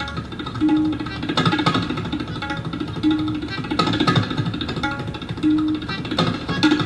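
Tabla played very fast in a galloping rhythm that imitates a running horse, over a short accompanying melody that repeats about every two and a half seconds.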